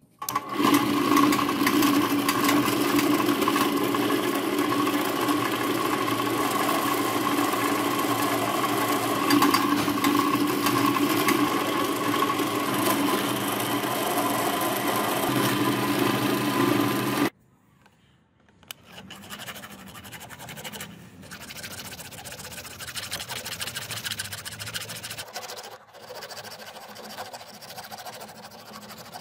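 Drill press running steadily while its twist bit bores holes through a brass guard piece; the sound cuts off after about 17 seconds. Then quieter, uneven scraping of a flat hand file on the brass.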